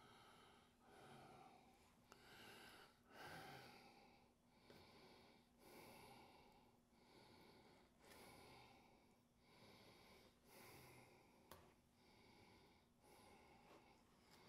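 Near silence: a man's faint, regular breathing, about one breath a second, with a couple of faint clicks.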